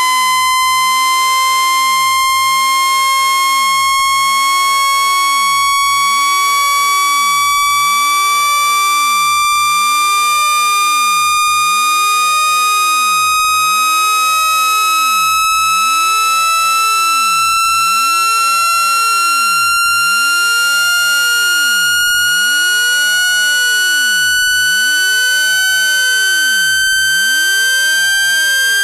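Speaker-cleaning test tone: a loud, steady electronic tone rising slowly in pitch, played to shake dust and water out of a phone speaker.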